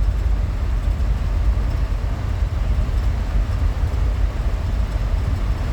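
Steady low rumble of a minivan driving, heard from inside the cabin: engine and road noise.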